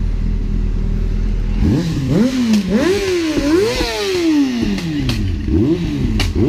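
Malossi-kitted scooter engine idling, then revved hard about two seconds in: a run of quick throttle blips, each rising and falling in pitch, with a few sharp clicks near the end.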